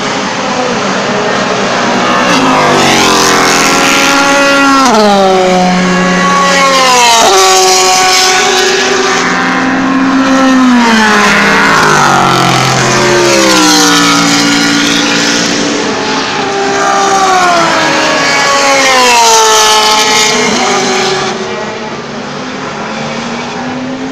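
Several endurance-racing sports-prototype cars pass at speed one after another, their engines running hard. Each car's engine note sweeps down in pitch as it goes by, and the sound eases off near the end.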